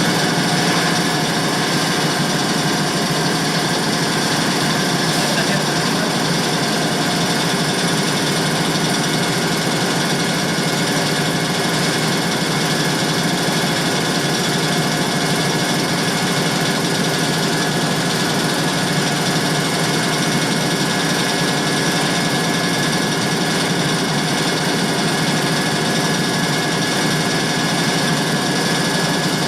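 Air compressor running steadily: a constant, even mechanical noise with a few steady tones that neither rises nor falls.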